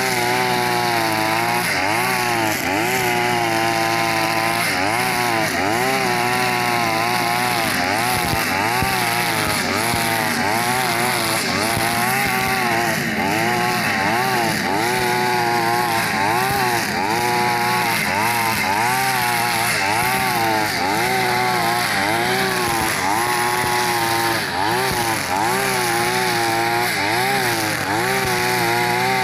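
Backpack brush cutter's 42cc two-stroke engine running at high revs while its nylon line cuts thick grass. The engine note dips and recovers about once a second as the line bites into the grass on each swing.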